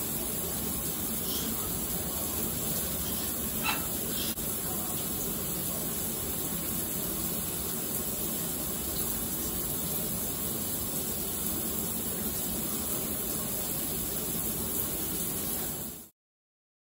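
Steady rushing hiss with a few faint short sounds in the first few seconds, cutting off to silence near the end.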